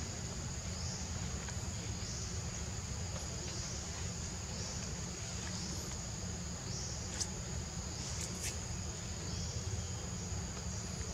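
Insects buzzing in a steady high chorus that swells in repeating waves every second or two, over a steady low rumble, with a couple of faint clicks.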